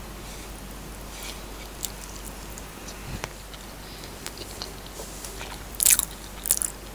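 Close-miked chewing and mouth sounds of a person eating the last few grains of fried rice: soft scattered clicks, with two louder sharp mouth sounds near the end.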